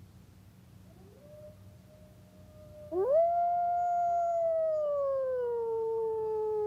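Wolves howling. A faint howl starts about a second in. Then a loud, long howl sweeps sharply up about three seconds in, holds its pitch, and slowly slides lower.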